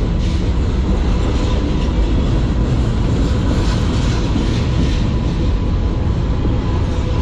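Freight train of covered hopper cars rolling past close by, a steady loud rumble of steel wheels on the rails.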